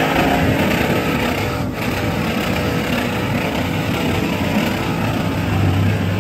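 Off-road Jeep buggy's engine running under load while its big mud tires spin in loose dirt.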